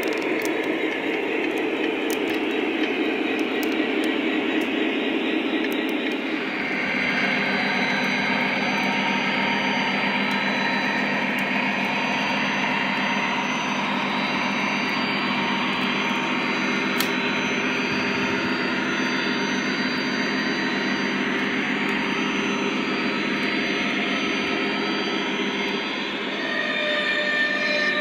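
Lionel Legacy O-gauge model diesel locomotives running on three-rail track, their onboard sound systems giving a steady diesel engine rumble over the rolling of the wheels. The sound shifts in tone about six seconds in.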